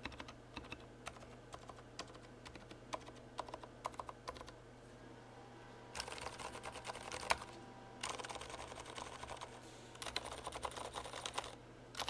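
Typing on a Leopold FC750R mechanical keyboard with lubed silent red linear switches: scattered soft keystrokes for the first few seconds, then, after a short pause, three bursts of fast typing, with one louder clack in the first burst.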